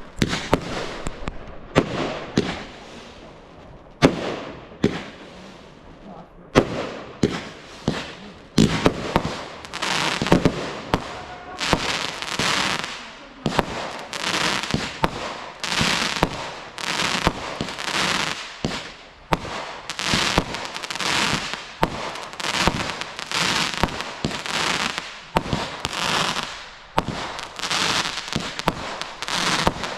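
Fireworks going off: sharp bangs, each followed by crackling. They come a few seconds apart at first, then from about nine seconds in they fire in a steady, rapid run, a little faster than one a second.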